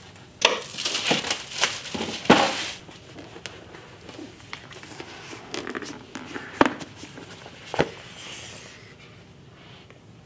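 Cardboard product boxes being handled and opened: the lid of a laptop box sliding and rustling, loudest in the first couple of seconds, followed by quieter handling with two sharp knocks.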